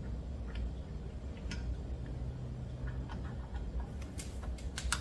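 Scattered light clicks and taps of small pump parts being handled and fitted back in during reassembly of a pressure washer pump, over a low steady hum.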